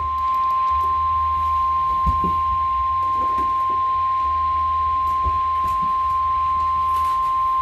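Weatheradio Canada warning alarm tone: a single steady high-pitched tone held without a break, heralding a severe thunderstorm warning, with a low hum underneath.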